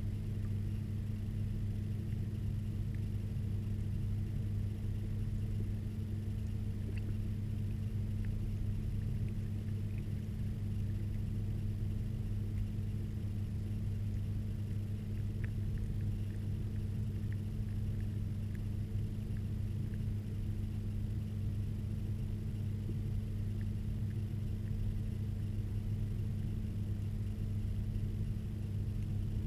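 Steady low hum, unchanging throughout, with a few faint scattered clicks, as picked up by a camera under the water of a fish pond.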